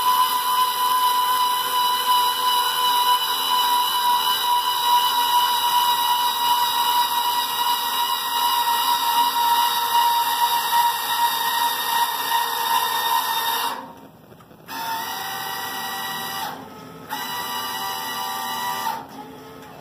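Electric linear actuators of a homemade garden-tractor bucket loader whining steadily as they raise the bucket. About 14 seconds in the motors stop, then start again at a different pitch in shorter runs broken by two brief pauses.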